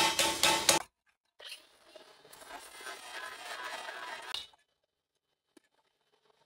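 Hand metalworking on an aluminum plate: a quick run of knocks that stops abruptly about a second in, then a few seconds of rough scraping and grating. After a stretch of dead silence, the scraping starts again at the very end.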